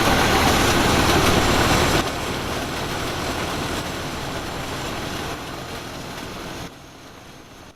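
Heavy diesel engine running steadily. It drops sharply in level about two seconds in and fades away in steps near the end.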